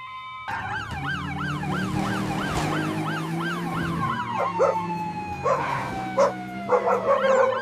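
Emergency siren wailing in a fast warble, about three rises and falls a second, starting about half a second in. In the second half a long, slowly falling tone joins it, and several short, loud cries cut in near the end.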